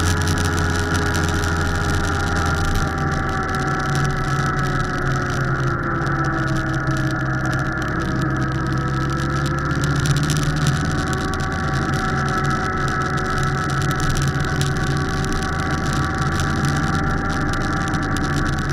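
Motorcycle engine running steadily while riding through bends, heard from a camera on the bike; the engine note drops a little about six seconds in and picks up again.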